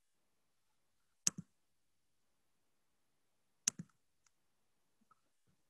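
Two sharp computer clicks, one about a second in and one past the middle, each a quick press-and-release pair, then a few faint ticks over a quiet room: clicking through the controls to share a screen on a video call.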